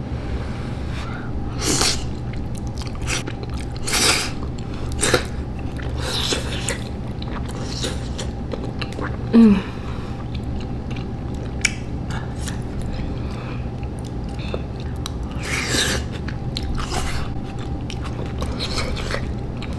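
A person slurping and chewing spicy Samyang Buldak noodles close to the microphone: several short, loud slurps with chewing between them, over a steady low hum. About halfway through there is one brief louder sound with a sliding pitch, like a short hum of the voice.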